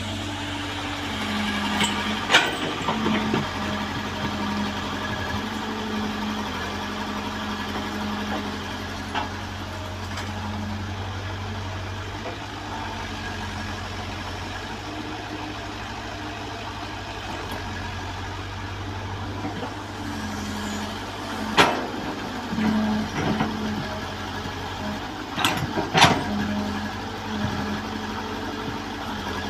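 Diesel engine of a compact crawler excavator running steadily as it digs and loads mud, its note shifting now and then as the arm works. Sharp metal knocks sound from the bucket and arm, once early and several times about three-quarters of the way through.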